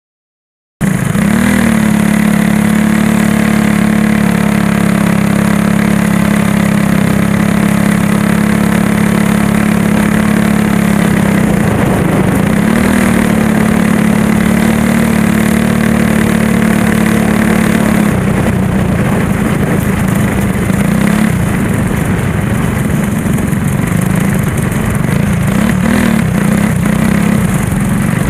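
Racing go-kart engine heard from onboard the kart, cutting in suddenly about a second in and running hard at a steady high pitch. From about two-thirds of the way through, its pitch wavers and the sound grows rougher.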